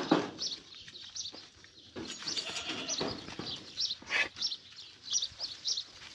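Goats bleating at a feeding railing, with a sharp knock about four seconds in.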